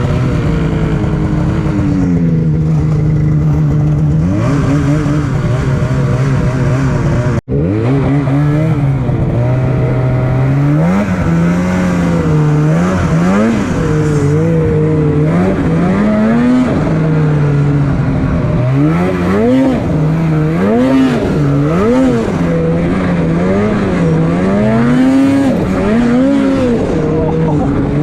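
Snowmobile engine running under load, its revs repeatedly rising and falling as the throttle is worked, with a brief cut-out about a third of the way in.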